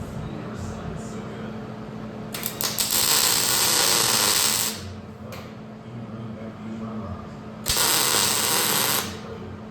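Two bursts of a loud, hissing, crackly power tool working metal. The first lasts about two and a half seconds and stutters as it starts; the second, near the end, lasts just over a second. A steady low hum runs underneath.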